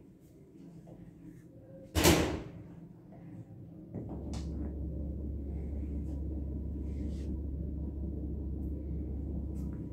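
A single sharp bang about two seconds in, then a steady low rumble from about four seconds on.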